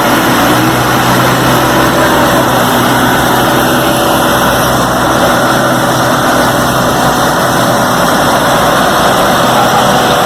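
Paver finisher's diesel engine running steadily while it lays asphalt, a loud continuous machine noise.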